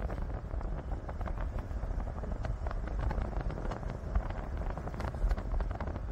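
Vehicle driving slowly over a rough sandy dirt track, heard from inside the cabin: a steady low rumble with frequent small rattles and knocks from the bumps.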